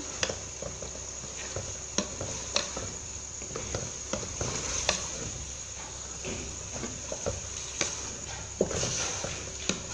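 Diced potatoes and chicken frying in oil in a metal pot with a steady sizzle, while a wooden spatula stirs and scrapes through them, clicking against the pot now and then.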